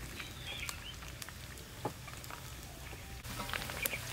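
Chicken wings frying in a wok of hot oil: a steady sizzle with scattered pops and crackles, which come thicker near the end.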